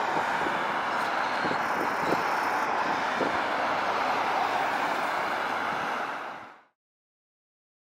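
Steady city street noise from traffic and a CAF streetcar, with a few faint clicks. It fades out quickly to silence about six and a half seconds in.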